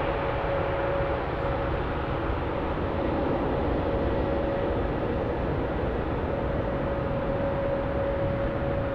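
Airbus A350-900's Rolls-Royce Trent XWB turbofans running at low taxi thrust as the airliner rolls slowly along the taxiway: a steady jet rumble with a constant whine over it.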